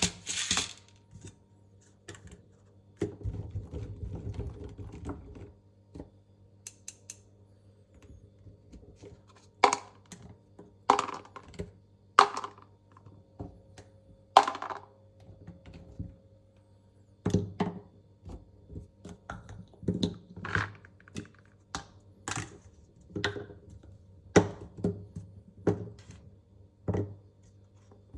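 Velvet sticks handled for colour sorting: irregular taps, clicks and knocks as they are picked up and set down, with a softer rubbing stretch about three seconds in. A faint steady hum lies beneath.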